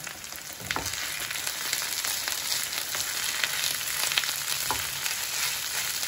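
Minced boiled mushrooms and onion frying in vegetable oil, a steady sizzle full of fine crackles. Two brief knocks, one under a second in and another about five seconds in.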